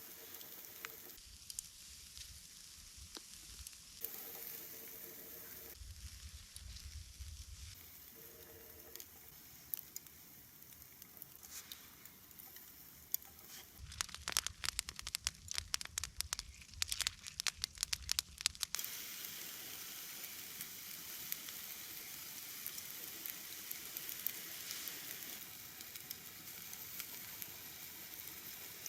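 Food sizzling as it fries. Midway there are several seconds of dense, sharp crackling pops, then a steady sizzle.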